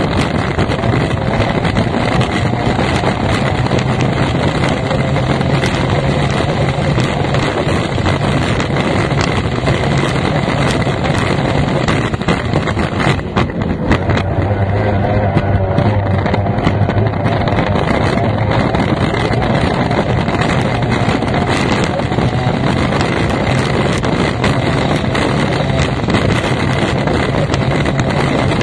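F1 tunnel-hull race boat's outboard engine running at racing speed, heard from the cockpit with heavy wind on the microphone. The engine note dips briefly near the middle, then picks back up.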